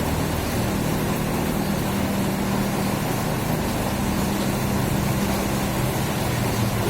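Steady rain hissing, with a vehicle engine running underneath as a low hum that swells and fades.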